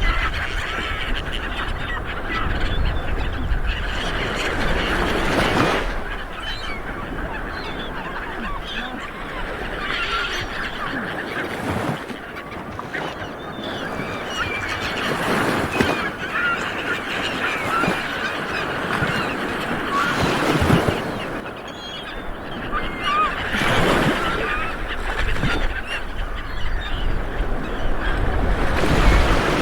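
Light waves washing onto a beach, swelling every several seconds, with many birds calling over the surf.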